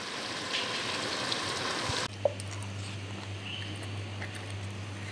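Pan of liver and chicken gizzard stew simmering with a soft sizzling hiss. About two seconds in, the hiss drops away abruptly and a steady low hum takes over.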